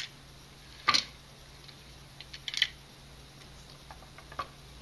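Plastic K'nex pieces being handled, giving a few short clicks and taps: the loudest about a second in, a small cluster of quicker clicks around the middle, and a couple more near the end.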